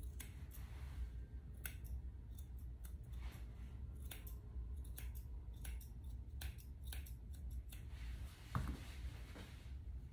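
Grooming shears snipping through a Bedlington Terrier puppy's coat in quick, irregular runs of cuts, over a low steady hum. One short, louder sound stands out near the end.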